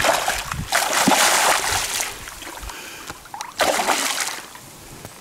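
A hooked muskie thrashing at the surface beside the boat, its splashing going on for the first two seconds and then easing off. About three and a half seconds in comes a second burst of heavy splashing, which the anglers take for a bigger fish striking at the hooked one.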